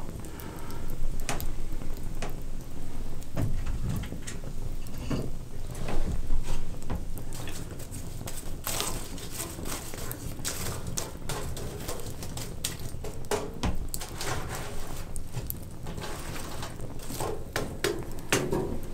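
Pan of boiled potatoes and sausages in butter and onion frying over an open wood fire: sizzling with dense, irregular crackles and pops, a few louder pops standing out.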